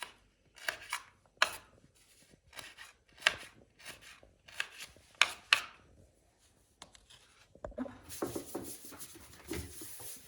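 Knife chopping on a cutting board: a handful of sharp strikes at irregular intervals, with soft scraping between them.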